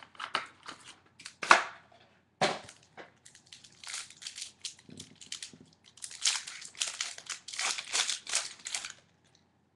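Clear plastic and foil wrapping of a trading-card pack crinkling and tearing as it is pulled open by hand. There are two sharper cracks in the first few seconds and a denser run of crinkling towards the end.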